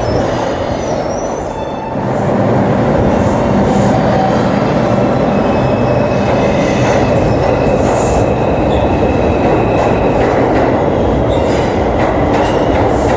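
An R142-series New York City subway train running along the platform in an underground station: a steady rumble of wheels on rail that gets louder about two seconds in, with thin high wheel squeals at times.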